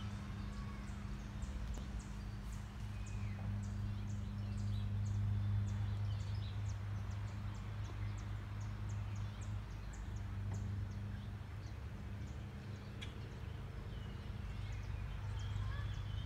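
Outdoor ambience: a steady low hum throughout, with a rapid series of short, high chirps and a few thin bird calls over it. The chirps thin out about two-thirds of the way through.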